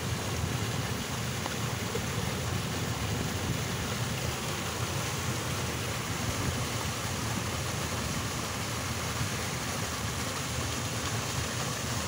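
Mountain stream rushing over rock ledges in a small cascade: a steady, even rush of water with a strong low rumble.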